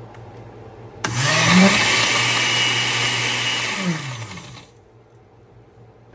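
Oster countertop blender blending a mint drink. It switches on about a second in, its motor spinning up, runs steadily, then winds down and stops after about three and a half seconds.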